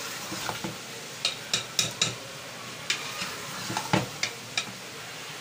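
Chopped pumpkin and chicken pieces sizzling as they are stirred and fried in masala in a pressure cooker pot, with a spoon scraping and knocking against the pot about a dozen times at an uneven pace, loudest about four seconds in.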